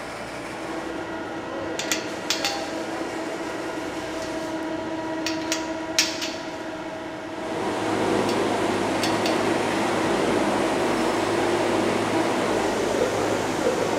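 Steady hum of sausage-factory machinery, with a few sharp metal clinks and knocks in the first half, from the steel sausage racks and hanging rods. About seven seconds in, the machine noise steps up to a louder, steady run with a low hum.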